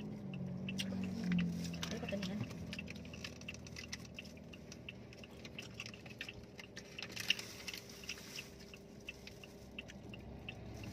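Wet mouth sounds of people eating ripe mango: many small sharp smacks, slurps and clicks of lips and chewing, over a low steady hum. A low hummed voice sounds in the first two seconds.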